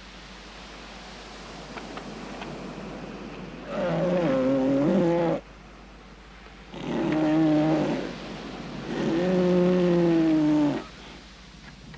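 Northern elephant seals calling: three long, pitched, drawn-out calls about a second apart, each lasting one and a half to two seconds, over a steady background hiss.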